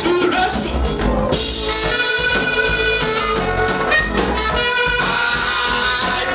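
Live church praise-band music: a drum kit keeps time under long held instrumental notes, with no clear singing.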